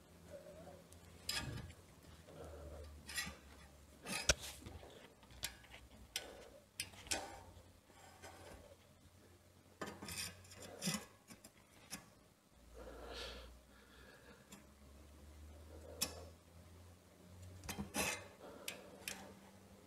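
Faint, irregular metal clicks and short scrapes of a rotor truing tool working a bent bicycle brake disc straight, with the disc rubbing on the brake pads as the rear wheel is turned.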